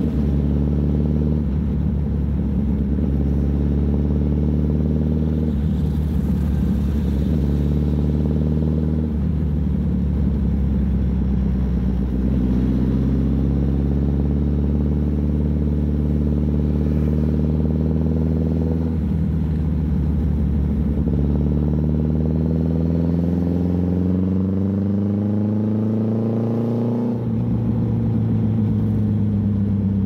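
Suzuki Hayabusa inline-four engine running under way. Its pitch shifts in steps several times, then climbs slowly over the second half and drops sharply near the end.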